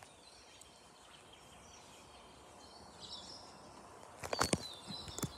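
Birds chirping now and then over a quiet outdoor background, with a cluster of sharp knocks near the end, the loudest sounds here.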